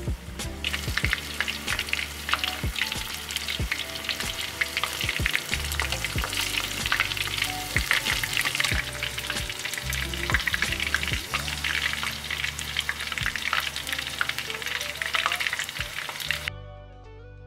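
Battered dory fish pieces deep-frying in hot oil: a dense, steady crackle and sizzle of popping bubbles. It cuts off suddenly about a second before the end, leaving soft background music.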